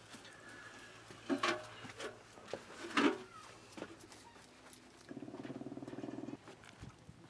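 A few sharp knocks and clatters, the loudest about three seconds in, then a rough, low, buzzing animal call lasting just over a second, about five seconds in.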